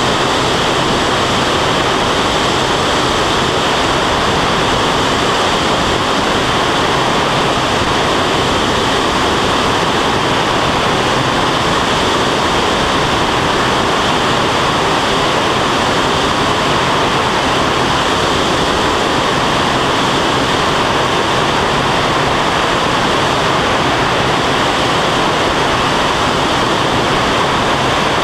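Steady, loud rush of airflow over a camera on the wing of an aerobatic biplane in flight, with the engine and propeller droning under it.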